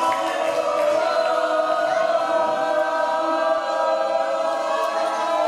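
Wrestling crowd chanting together, many voices holding a sung note for several seconds.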